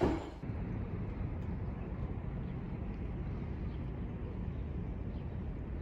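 Steady, even low rumble of ambient noise with no distinct events.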